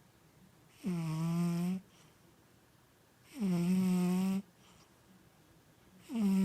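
Sleeping tabby cat snoring loudly: three snores about two and a half seconds apart. Each is a low, pitched buzz about a second long, which slides down briefly at its start and then holds steady.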